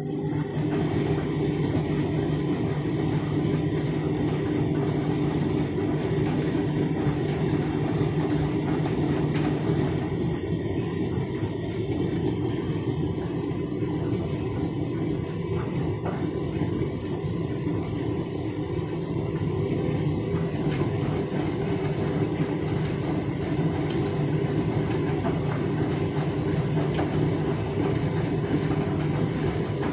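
Candy front-loading washing machine running its rinse: a steady low hum with a rush of water through it.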